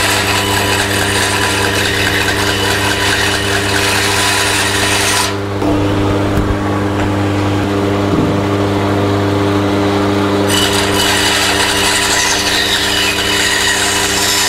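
Powermatic 14-inch bandsaw running with a steady motor hum while its blade cuts through a wooden board. The cutting noise drops away for a few seconds in the middle, leaving only the hum, then returns.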